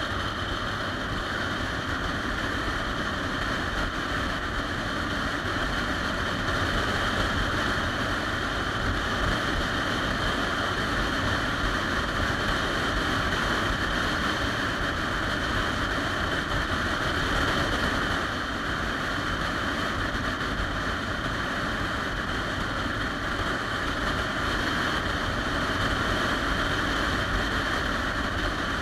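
Motorcycle cruising at steady speed: wind rushing over the bike-mounted microphone, with the drone of the 2013 Triumph Rocket 3 Touring's inline-triple engine and the tyre noise underneath.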